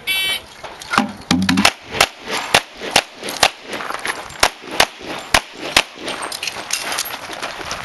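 Competition shot timer beeps once, then about a second later a handgun opens fire: a string of about a dozen sharp shots at roughly two a second, with fainter pops after.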